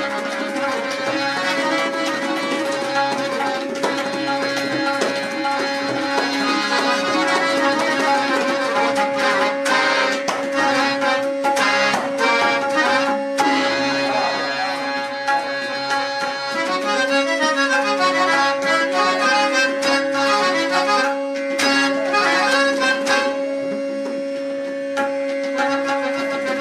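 Tabla solo accompanied by harmonium. The harmonium plays a repeating lehra melody over a steady held note, while the tabla plays strokes on both drums, with runs of fast strokes about halfway through and again a few seconds before the end.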